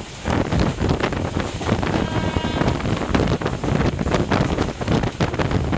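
Wind rushing over the microphone on the roof of a moving train, with the train's running noise beneath it. A brief pitched tone sounds about two seconds in.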